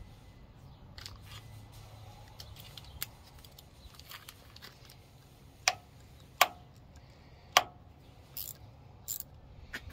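Small hex key turning a set screw into a steel pulley hub: scattered sharp metal clicks, three louder ones about a second apart in the middle.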